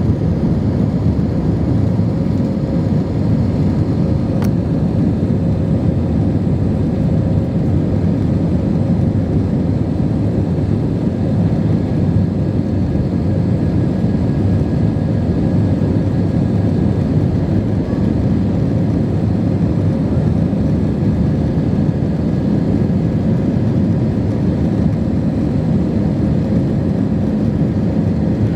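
Airbus A320 cabin noise in flight: a steady, even rush and hum of the IAE V2527 turbofan engines and airflow over the fuselage, heard from a passenger seat.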